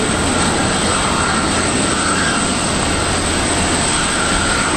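Airbus A350-900's Rolls-Royce Trent XWB turbofan engines running at taxi power: a steady jet rush with a high, slightly wavering whine.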